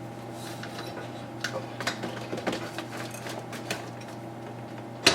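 Light, scattered metallic clicks and taps as a motorcycle fork tube is worked up and aligned into the top triple clamp, ending in one sharp knock at the very end as it seats. A steady electrical hum runs underneath.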